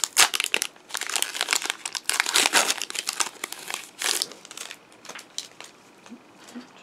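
Foil wrapper of a Pokémon trading card booster pack crinkling as it is torn open, dense for about three seconds with another short crinkle about four seconds in, then a few light clicks as the cards are handled.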